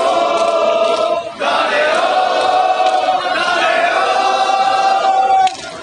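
A crowd of football supporters chanting in unison, many male voices drawing out long held notes. One phrase breaks off about a second and a half in and a second long phrase runs until near the end.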